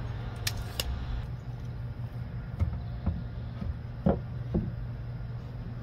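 A few sharp clicks and short knocks as a tape measure is handled and set against the coop's wooden framing, the strongest knock about four seconds in, over a steady low hum.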